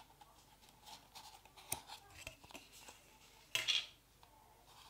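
Light handling of a small plastic livestock pot and the paper tissue inside it: a few small plastic clicks and ticks, and a short crinkly rustle of the paper about three and a half seconds in.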